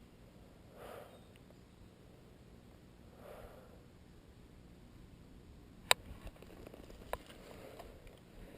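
Two soft sniffs or breaths from a person, then a sharp click about six seconds in and a fainter click a second later.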